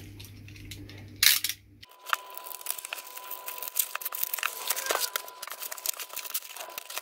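Bubble wrap crinkling and crackling as it is pulled and unwrapped from around a cardboard box, with a short loud rip about a second in.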